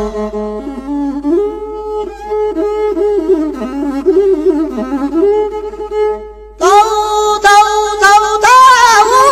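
Amharic war-song music in an instrumental passage led by a bowed fiddle melody; about two-thirds of the way through it turns louder and fuller.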